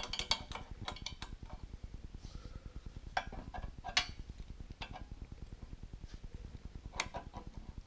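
Adjustable wrench clinking on the steel nut of a hydraulic elbow fitting as it is turned and repositioned, in scattered sharp metal clicks: a quick run in the first second, a few more around three to four seconds in and one near the end, over a faint steady hum.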